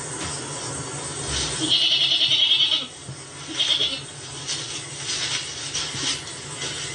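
A goat bleating twice. A long, wavering bleat comes about two seconds in, and a short one follows about a second later.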